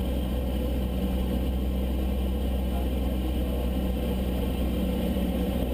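Single-engine light aircraft's piston engine and propeller droning steadily, heard from inside the cabin on final approach to landing.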